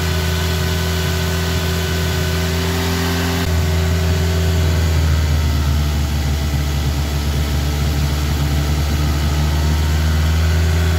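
Hyundai Elantra's 1.6-litre turbocharged GDI four-cylinder running steadily at raised revs while Sea Foam top engine cleaner is sprayed into its intake. About three and a half seconds in, the engine's note changes and gets slightly louder.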